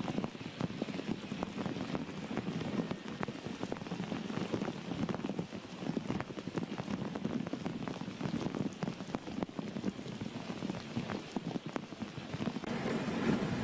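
Heavy rain falling on hard surfaces: a steady wash of noise full of countless small, sharp drop hits.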